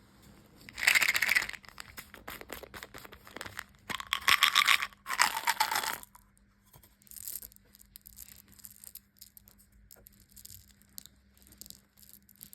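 Plastic candy wrappers being torn open and crinkled, in three loud crackling bursts in the first half, then quieter rustles and crackles.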